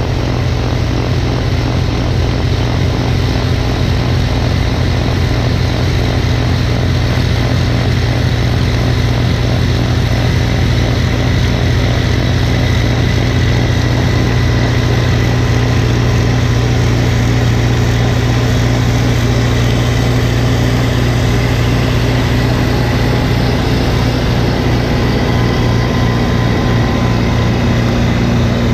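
Snowblower's small gasoline engine running steadily at a constant speed.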